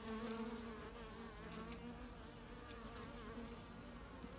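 Honeybees buzzing, a faint steady hum of wings.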